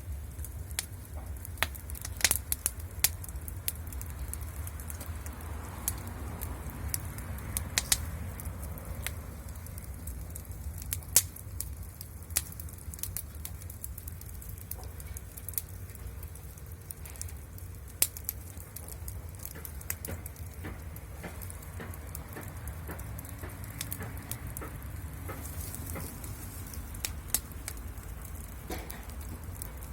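Wood fire crackling, with irregular sharp pops scattered throughout over a low steady rumble.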